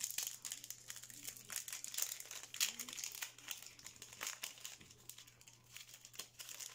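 Foil Yu-Gi-Oh booster pack wrapper crinkling in the hands as it is torn open along the top strip, a dense run of sharp crackles that thins out toward the end.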